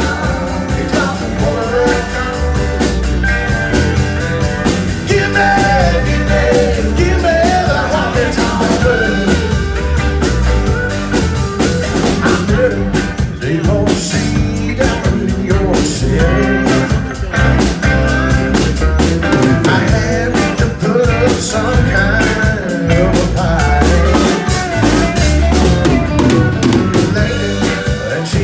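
Live rock band playing: drum kit, bass guitar, keyboard, and acoustic and electric guitars together at a steady beat.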